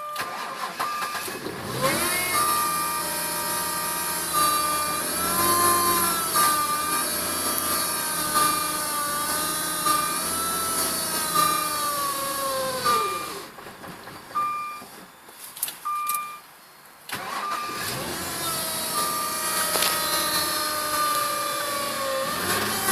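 Jaguar S-Type 3.0 V6 cold-starting in −32° frost. It catches about two seconds in and runs with revs rising and falling, then winds down and dies about thirteen seconds in. A few seconds later it fires again and keeps running. The hard start is put down by the owner to fuel injectors needing cleaning. An intermittent beeping tone sounds alongside.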